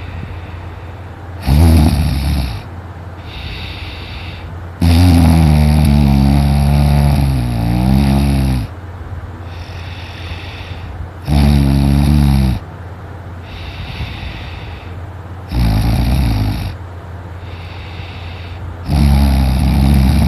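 A man in deep sleep snoring very loudly: five rattling, buzzing snores come every three to four seconds, one stretching nearly four seconds, with quieter breathing between them.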